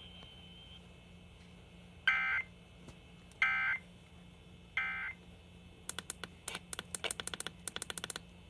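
Emergency Alert System end-of-message signal: three short, buzzy digital data bursts about a second apart, closing a broadcast flood warning. A quick run of sharp clicks follows near the end.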